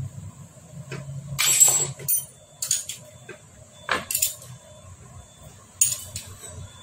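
Hand tools and metal engine parts clinking against a Hero Splendor Plus engine's casing during assembly: a series of sharp metallic clinks, the loudest a short rattling clatter about a second and a half in.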